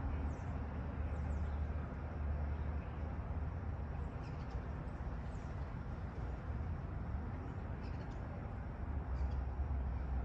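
Steady low background rumble, with faint short high chirps of small birds now and then.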